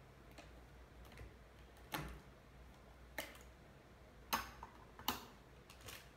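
Scattered light clicks and taps of small objects handled on a table, about five spread over six seconds, over a faint steady low hum.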